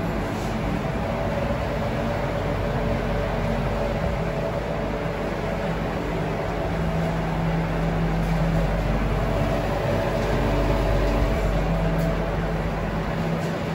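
Refrigerated display counter's condensing unit running: a steady mechanical hum with a low drone and a higher steady tone over a rushing noise. It swells slightly about two-thirds of the way through.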